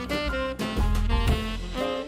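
Upbeat instrumental background music with saxophone or brass lead notes over bass and drums.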